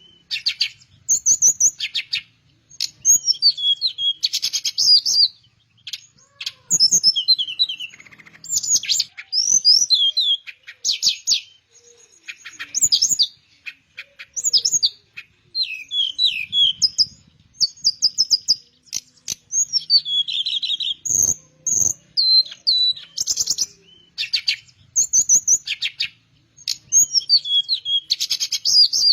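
A teledekan melayu, a flycatcher, singing in busy, repeated phrases of quick high chirps, slurred whistles and rapid trills, each phrase a second or two long with short pauses between.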